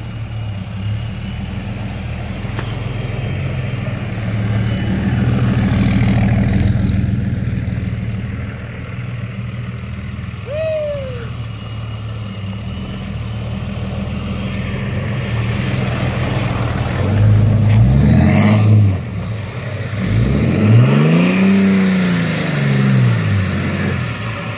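Dodge Ram pickup's 6.7 L Cummins turbo-diesel six running under load as the truck spins its tyres in snow, then revving hard twice near the end, the pitch climbing and falling each time.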